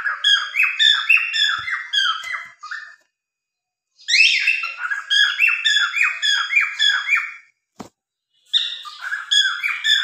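Cockatiels chirping in quick runs of falling notes, about four or five a second, in three bursts with short pauses between. A single sharp click comes just before the last burst.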